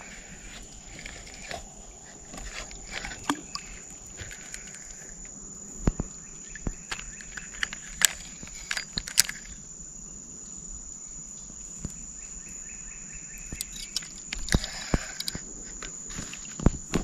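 A steady high insect drone, with irregular snaps and crunches of footsteps moving through undergrowth, more of them near the end.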